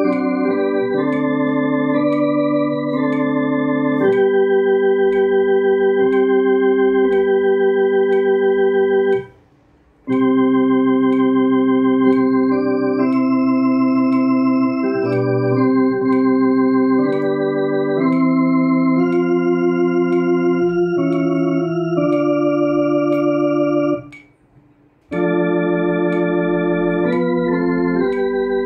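Two-manual electronic home organ playing a hymn slowly with both hands, in held chords that change every one to two seconds. The sound stops briefly twice, about nine and twenty-four seconds in, between phrases.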